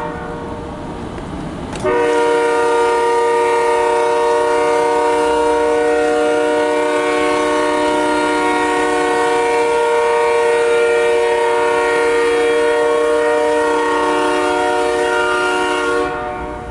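Canadian National freight locomotive's air horn sounding one long, steady, loud blast. It starts about two seconds in, after a short stretch of the train's rumble, and cuts off shortly before the end.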